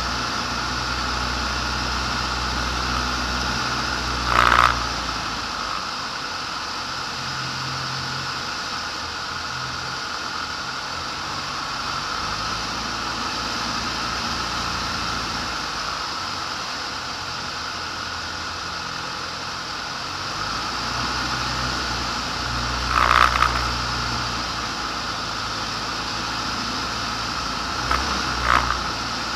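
Ultralight aircraft's engine and propeller running steadily in flight, heard from inside the cockpit, with a deep rumble that swells and fades. Three brief louder bursts come about four seconds in, about twenty-three seconds in and near the end.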